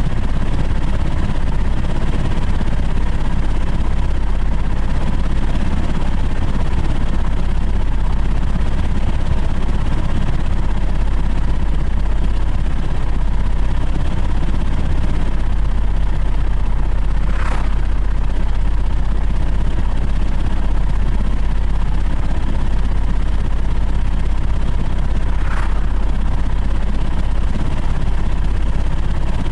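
Steady, loud wind and road rumble from a moving car, with a deep low rumble throughout and brief swishes about 17 and 26 seconds in.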